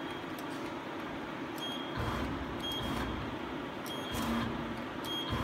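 Hyundai Kia SKT 21 LMS CNC turning lathe running with a steady mechanical hum. Short high chirps and clicks recur about once a second, and a lower rumble comes in about two seconds in.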